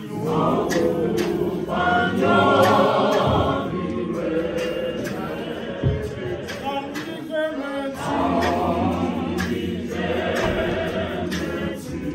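Church congregation singing a hymn together a cappella, with sharp percussive beats keeping time about twice a second.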